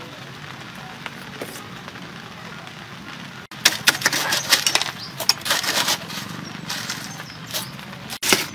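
Crushed ice and star apple pieces crunching and clinking as a metal ladle stirs them in a steel bowl. A rapid, irregular run of sharp clicks and crackles begins about three and a half seconds in, after a quiet start.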